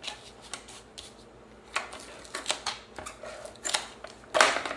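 Hands handling card stock while a tape runner lays adhesive on a paper pocket: scattered light taps and rustles with a few short rasping strokes, the loudest near the end.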